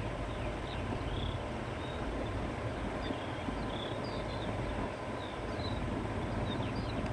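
Steady wind blowing across open countryside, with a low rumble. Small birds chirp over it in many short, high calls.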